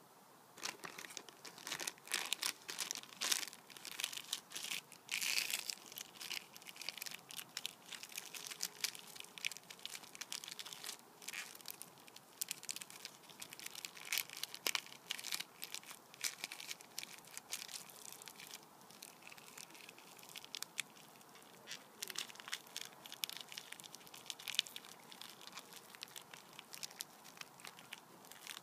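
Empty Snack a Jacks crisp packet crinkling and crackling as it is folded and creased by hand into a small square, in an irregular run of sharp crackles, thickest in the first few seconds.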